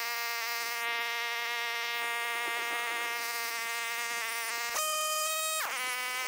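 Weima WM188F single-cylinder engine of a walk-behind tractor running steadily with a buzzing whine. Near the end the pitch jumps up and then slides back down about a second later.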